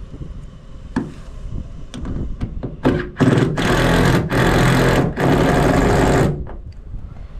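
A few light clicks of tools on metal. Then a Ryobi cordless impact driver runs in several back-to-back bursts for about three seconds, tightening the bolts that hold a bow eye to an aluminum boat's hull.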